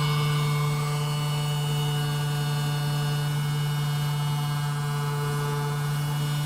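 A steady electrical hum at one low pitch with overtones above it, unbroken and even in level.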